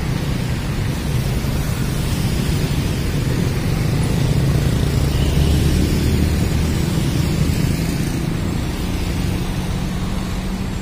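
Scania K410CB bus's rear-mounted 13-litre straight-six diesel engine idling steadily, a little louder midway, under a steady hiss.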